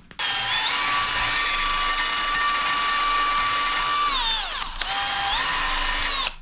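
Power drill running at speed while drilling pilot holes. Its whine slows and drops in pitch about four seconds in, speeds back up, and stops abruptly near the end.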